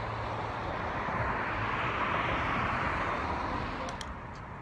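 A road vehicle passing by: tyre and engine noise that swells, peaks about two seconds in, then fades away.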